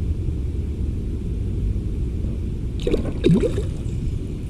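Muffled underwater noise from a submerged camera: a steady low rush of river water with gurgling, and a brief warbling sound about three seconds in.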